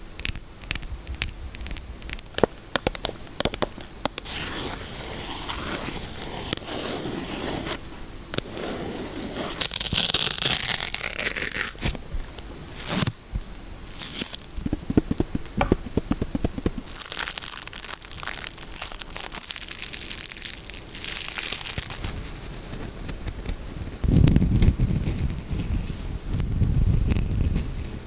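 Close-miked soap unpacking: a wrapper crinkling, crackling and tearing, with sharp clicks between handlings. There is a run of quick taps about halfway through, and low scratching or rubbing near the end.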